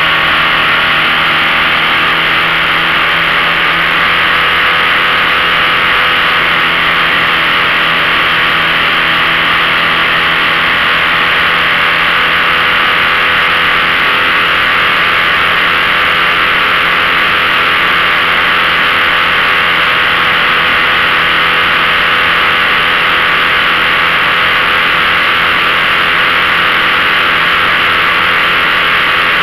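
15 hp outboard motor running steadily at a constant throttle with the boat under way, its engine hum mixed with a loud, even rush of noise.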